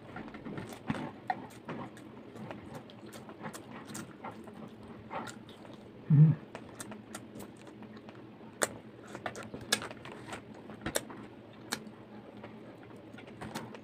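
Close-up eating sounds of a person chewing rice and fish eaten by hand: wet mouth clicks and lip smacks scattered irregularly, with a short hum about six seconds in.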